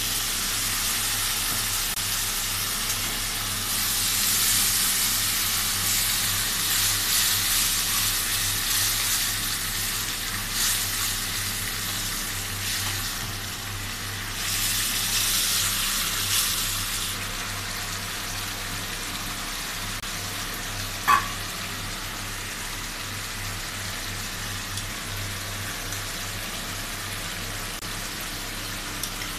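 Chopped onion, capsicum and chilli sizzling in hot oil in a steel kadai, stirred with a spatula; the sizzle swells louder twice and settles to a steady hiss, with one sharp clink about two-thirds of the way through.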